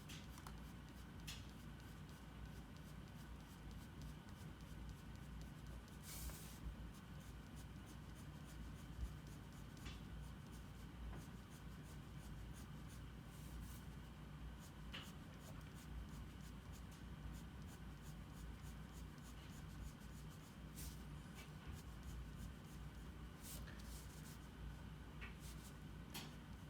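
Faint scratching of a drawing tool on paper: short irregular strokes at scattered moments over a steady low hum.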